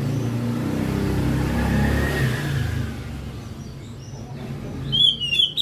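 A motor vehicle passing close by: engine and road noise loudest over the first three seconds, then fading away. About five seconds in, a caged oriental magpie-robin starts sharp, rapid chirps.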